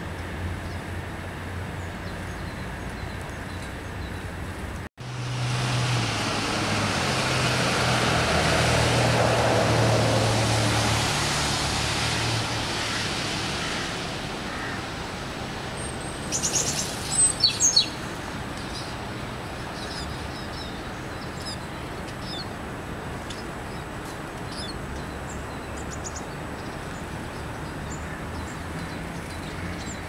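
High, thin calls of a Eurasian siskin: a short cluster of sharp chirps a little past halfway, and fainter chirps after. Under them is a steady low rumble, like distant traffic, that swells for several seconds near the start and fades again.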